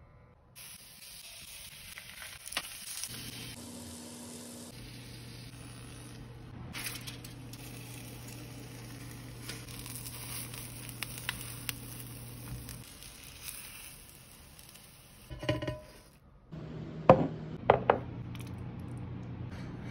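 Egg and zucchini sizzling steadily in an oiled non-stick frying pan. Near the end there are a few sharp taps.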